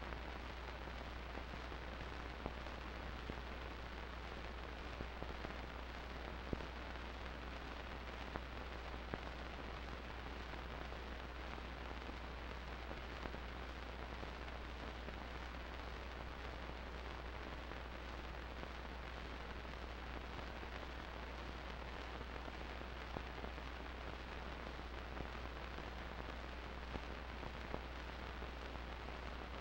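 Steady hiss over a constant low hum, with scattered faint clicks. No band or crowd is heard: this is the bare noise floor of a silent home-movie film transfer.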